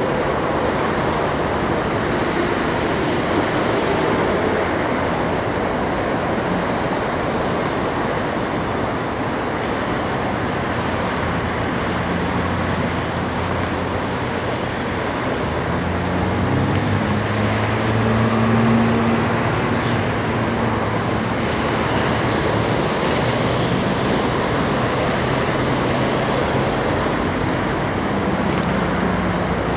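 Steady rush of highway traffic, cars and trucks passing close by. A low engine hum from a heavier vehicle swells and fades around the middle.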